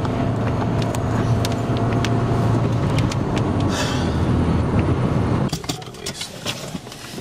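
Car driving at highway speed, heard from inside the cabin: a steady low drone of engine and road noise. It cuts off suddenly about five and a half seconds in, leaving a quieter background with scattered faint ticks.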